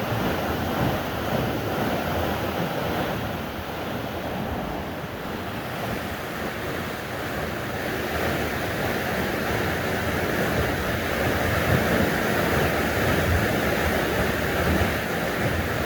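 Steady rush of a waterfall pouring into a high, fast-running river, with wind off the falls buffeting the microphone.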